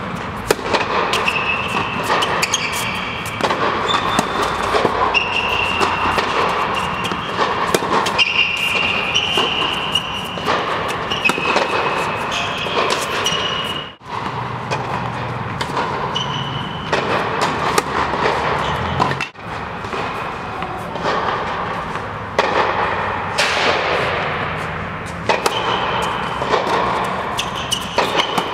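Tennis balls being struck by rackets and bouncing on an indoor hard court: a long run of sharp knocks, irregularly spaced, ringing in a large reverberant hall over a steady background noise, with a couple of abrupt breaks.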